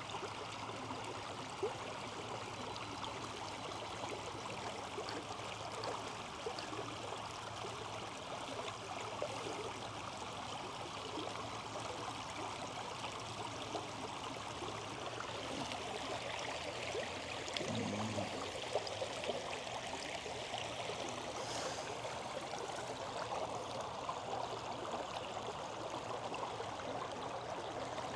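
Shallow creek water flowing steadily over stones.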